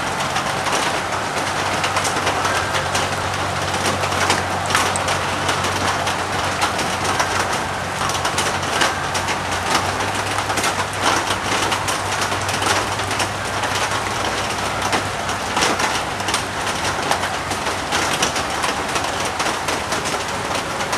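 Heavy rain falling onto standing floodwater and wet pavement: a dense, steady hiss of drops splashing, with a low hum underneath for much of it.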